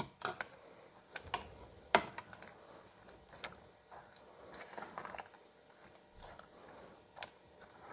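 Irregular clicks and taps of a metal-headed utensil against a nonstick saucepan as potatoes and carrots are mashed with milk; the loudest tap comes about two seconds in.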